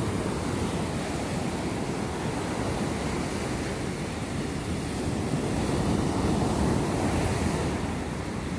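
Ocean surf breaking offshore and washing up a sand beach: a steady, continuous rushing noise that swells a little about two-thirds of the way through.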